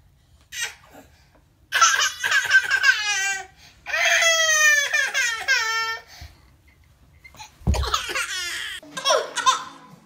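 Toddler twins squabbling over a chair: high-pitched squeals, then a long wailing cry that falls in pitch. A dull thump just before the end, then more fussing.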